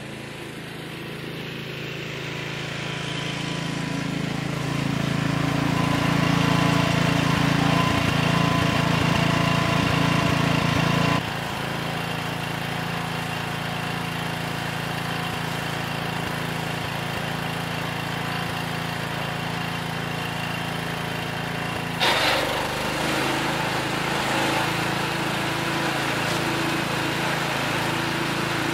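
The cast iron Kohler K341 16 horsepower single-cylinder engine of an Allis Chalmers 416 garden tractor, running steadily and growing louder over the first few seconds as the tractor comes closer. The sound changes abruptly in level about eleven and twenty-two seconds in.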